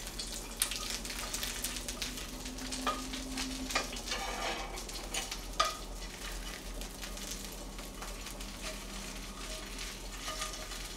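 Hot oil sizzling and crackling in a frying pan with a grilled mackerel fillet, with a wooden spatula scraping and knocking against the pan a few times. The crackling thins out after about six seconds.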